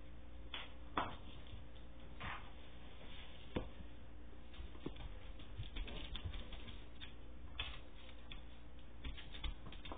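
Dogs' claws clicking and tapping on a hardwood floor as a beagle and a puppy move about and play, in scattered irregular taps over a steady low hum.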